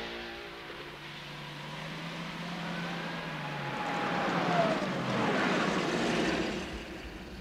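Jaguar XJ-C Broadspeed coupé's engine running low and steady as the car drives down the pit lane, stepping down in pitch twice as it slows, with engine and tyre noise swelling loudest towards the middle and then easing off. At the start, the louder engine of a passing race car fades away.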